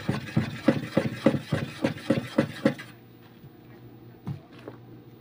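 Wooden spoon stirring a foamy liquid soap mixture in a plastic basin, knocking against the basin in a steady rhythm of about three strokes a second. The stirring stops about three seconds in, followed by a couple of single knocks.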